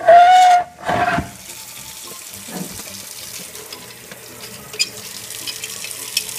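A loud, high-pitched sound lasting under a second at the start, with a shorter one just after, then a tap running steadily into a sink.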